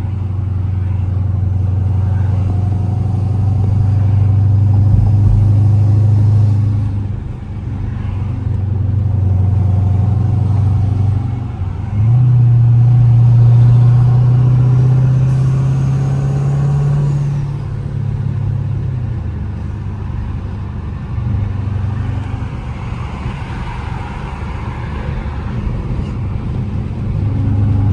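Twin-turbocharged 5.7 Hemi V8 of a Dodge Charger pulling at light part throttle while driving, its exhaust note swelling and easing off in several surges. During the strongest pull, around the middle, the engine note climbs and a faint high whine rises with it from the turbos spooling.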